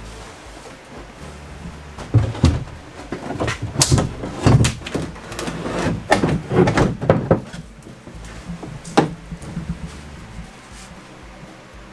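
Delta Styla 54-inch bathtub being lowered and set into its alcove: a run of knocks, thuds and scrapes as the tub shell bumps against the floor and wall studs, densest from about two to seven seconds in, then one last sharp knock about nine seconds in.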